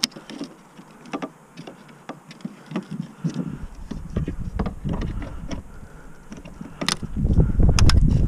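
Light plastic clicks and taps as a replacement centre brake light is handled and pressed onto a car's tailgate, with a few sharper clicks near the end as it is pushed into place. A low rumble comes in over the last second or so.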